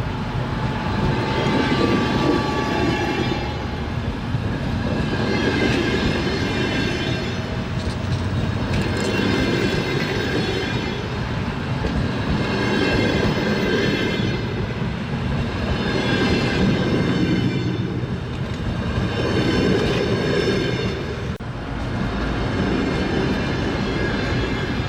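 Train wheels clattering over the rails as the train runs, swelling and easing about every three and a half seconds, with a high ringing whine rising in each swell.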